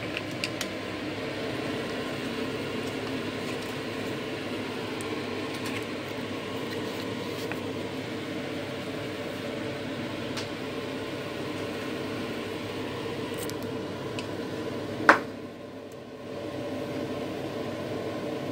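Chicken broth at a steady rolling boil in an open electric multicooker bowl, bubbling continuously, with one sharp knock about fifteen seconds in.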